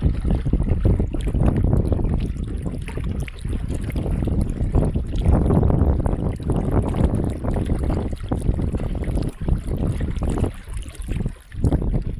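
Water sloshing and lapping against the side of a moving wooden boat, with wind rumbling on the microphone; the level rises and falls unevenly, with short dips near the end.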